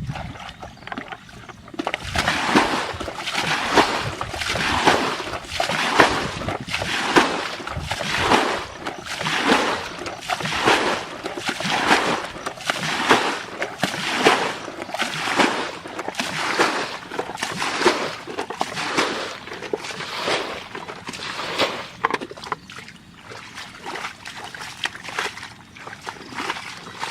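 Water splashing in a steady rhythm, about two splashes a second, starting about two seconds in and growing weaker near the end.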